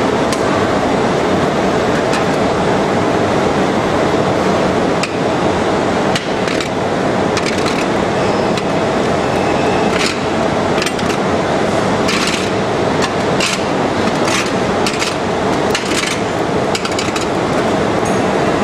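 CNC shaping lathe turning a porcelain insulator: a steady, loud machine din with a scatter of short scraping clicks from the cutting tools on the porcelain, more frequent in the second half.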